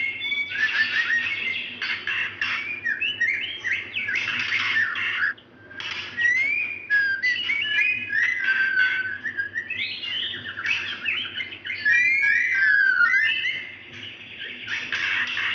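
Female white-rumped shama calling, a near-continuous stream of clear whistled notes, chirps and quick sliding phrases with two brief lulls. These are the calls of a female in breeding condition calling for a male.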